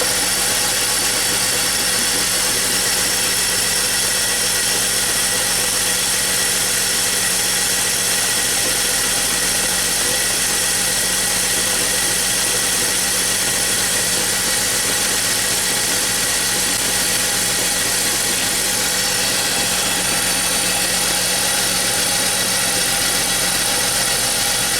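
BMW X5's six-cylinder engine idling steadily and evenly, its misfire gone for now.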